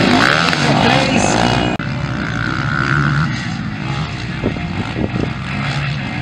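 Motocross bike engines revving, rising and falling in pitch, loud and close. About two seconds in the sound cuts to several bikes running farther off around the track, a little quieter.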